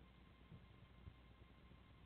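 Near silence: a faint low hiss with a thin steady high tone, and two soft low bumps about half a second and a second in.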